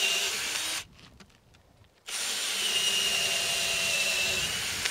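Cordless drill working into a wooden gate post with a steady whine. It stops just under a second in, then starts again after a short pause and runs for nearly three seconds.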